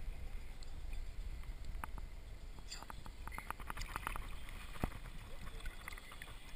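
Water sloshing and lapping against a camera sitting at the waterline beside a boat's hull, a steady low rumble. Around three to four seconds in comes a run of small clicks, with a single louder knock about a second later.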